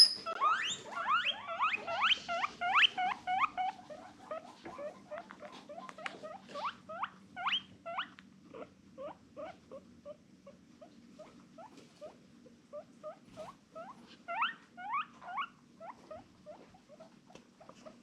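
Guinea pig wheeking: a long run of short rising squeaks, about two or three a second. They are loudest at first, thin out, then come back in a louder flurry about fourteen seconds in, over a faint steady low hum.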